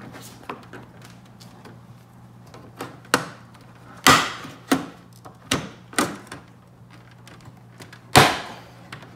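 Plastic trunk sill trim of a Mercedes C300 being pried and pulled loose with a trim removal tool: a string of sharp plastic clicks and knocks, the loudest about four seconds in and again near the end. A faint steady low hum runs underneath.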